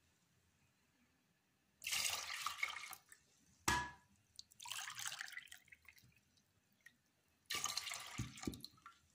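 Cold water poured from a glass into a metal pot of milk, splashing in three pours of about a second each. There is a sharp clink with a brief ring between the first two pours.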